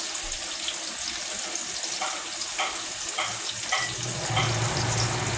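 Seasoned zucchini frying in oil in a skillet, a steady sizzle with a few small pops and clicks. A low hum comes in near the end.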